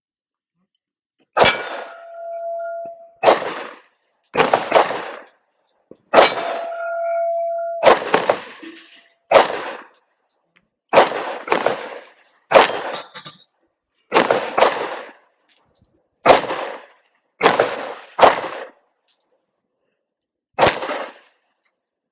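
Gen 2 Glock 23 pistol firing .40 S&W, about eighteen shots at an uneven pace with some quick doubles, a magazine being emptied. After two of the shots a steel plate target rings for about a second.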